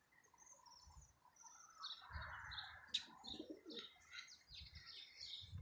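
Faint, scattered bird chirps, with a short soft rush of noise about two seconds in and a single sharp click near three seconds.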